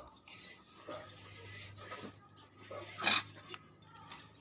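Light metallic rubbing and small clinks as a car power-window regulator's steel cable and its spring-loaded cable-end fitting are handled, with a sharper clink about three seconds in.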